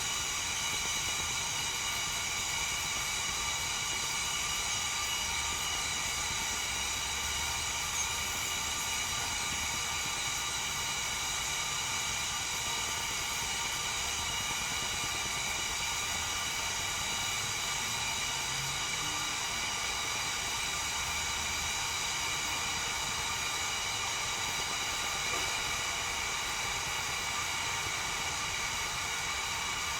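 Whistling tea kettle heating water, a steady hiss as the water works up toward the boil, not yet whistling.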